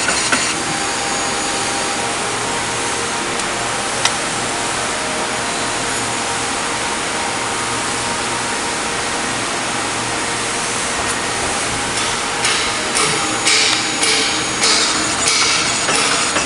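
Thread rolling machine running: a steady hiss with a low hum, a single sharp click about four seconds in, then from about three-quarters of the way through a series of uneven clacks and knocks.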